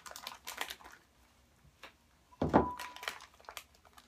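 Plastic bag crinkling, then about two and a half seconds in a single thump with a short ring as a glass bowl is set down on the countertop.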